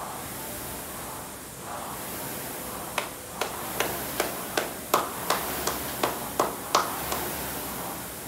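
Air rowing machine's fan flywheel whooshing steadily as a man rows. About three seconds in, a quick run of about a dozen sharp claps, roughly three a second, lasts about four seconds.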